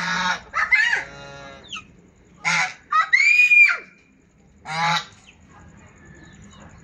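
Domestic geese honking: a series of loud calls, the longest and clearest about three seconds in, then quieter near the end.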